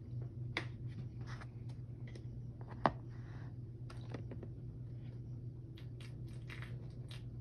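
Faint handling noise: scattered soft clicks and rustles over a steady low hum, with one sharper click about three seconds in.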